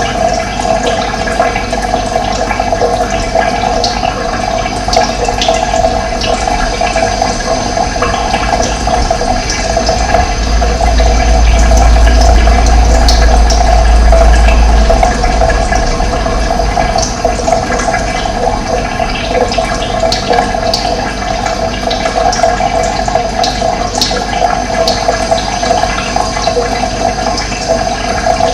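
Steady rush of running water, with short high bird chirps scattered over it; a low rumble swells for a few seconds in the middle.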